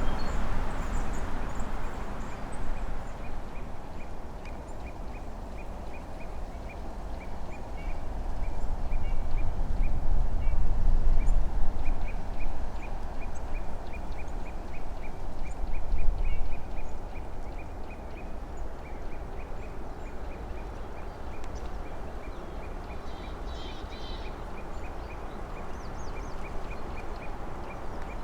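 Early spring forest ambience: a dense, continuous murmuring wash with low rumble that swells twice, about a third of the way in and again a few seconds later. Through it runs a steady string of faint high ticks, and a few faint high chirps come near the end.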